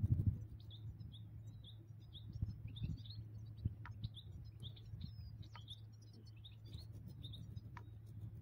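European goldfinches twittering: a quick run of short, high chirps that keeps going, over a low steady hum.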